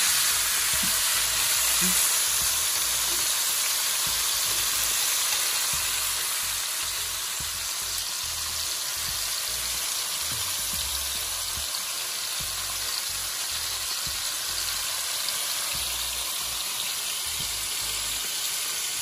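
Seasoned beef ribs sizzling steadily as they brown in a hot pot on high heat, a little louder over the first few seconds.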